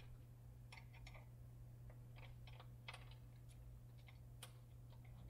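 Faint, irregular light clicks and taps of a hand wrench and small bolt hardware being handled as a motorcycle rear shock absorber is fitted onto its upper mount, over a steady low hum.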